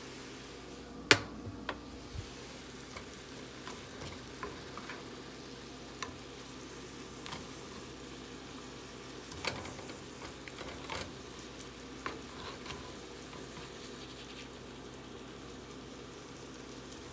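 Sweet peppers and mushrooms sizzling gently in an oiled frying pan on medium-low heat, with a utensil stirring and clicking against the pan now and then; the sharpest tap comes about a second in.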